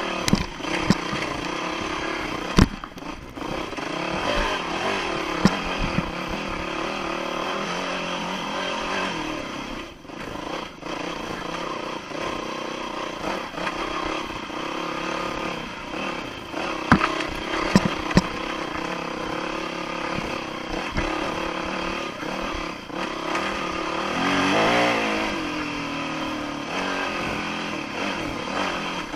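Dirt bike engine running at constantly changing revs on trail, broken by several sharp knocks and clatters. Near the end the engine revs up louder and drops back.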